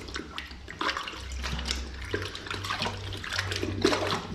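Water sloshing and splashing in a toilet bowl as a rubber-gloved hand works down in the drain outlet of the just-unblocked toilet, in irregular short splashes over a low steady hum.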